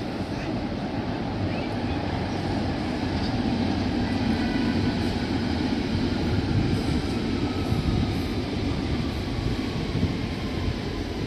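Train moving through the station: a steady rumble that swells in the middle, with a faint whine falling slowly in pitch in the second half.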